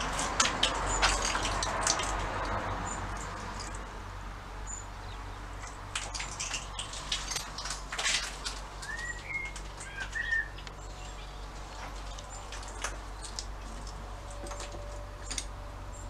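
Scattered sharp clicks and light knocks, densest in the first two seconds and again from about six to ten seconds in, with a few short bird chirps about nine to ten seconds in.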